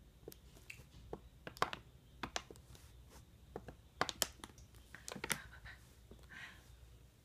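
Thin plastic water bottle crackling and clicking as a baby grips and squeezes it: an irregular scatter of sharp crinkles, loudest about four to five seconds in.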